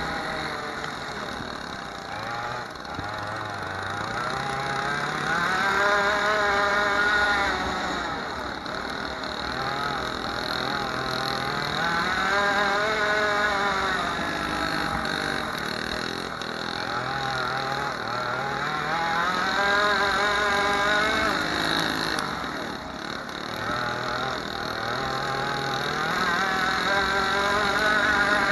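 Racing go-kart engine heard from on board, revving up and falling back over and over, climbing in pitch and dropping about every seven seconds as the kart laps a dirt track.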